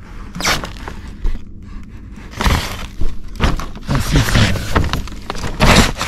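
Plastic vapor barrier sheeting crinkling and rustling in irregular bursts under someone crawling over it, loudest near the end.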